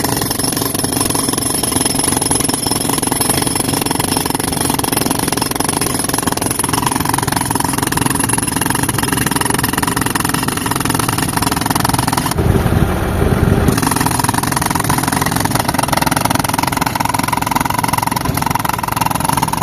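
Pneumatic concrete breaker hammering continuously into concrete, a fast steady rattle, over the steady running of the tractor-driven air compressor's engine. About twelve seconds in, for roughly a second, the sound turns to a heavier low rumble.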